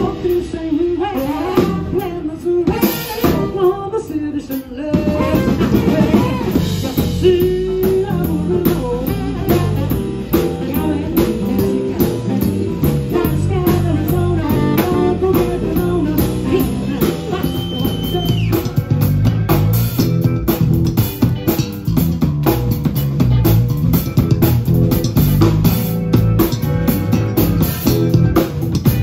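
Live band playing a steady groove on drum kit, electric bass, electric guitar and keyboard, the drums and bass line loudest.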